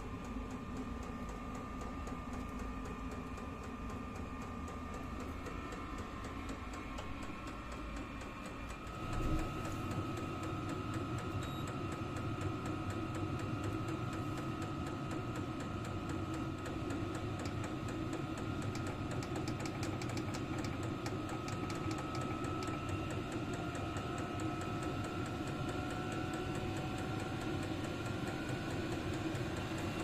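VEVOR 8 kW all-in-one diesel air heater running: a steady blower whine with the fuel pump ticking evenly. About nine seconds in it turns louder, with a fuller low rumble.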